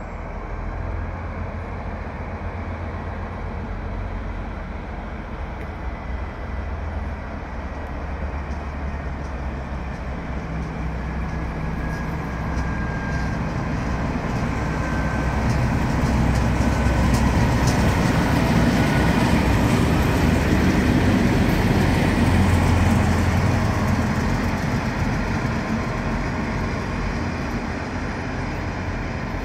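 Two DB Class 218 diesel-hydraulic locomotives coupled together and running light past: a steady low diesel drone that grows louder as they approach, is loudest a little after the middle, then eases as they move away.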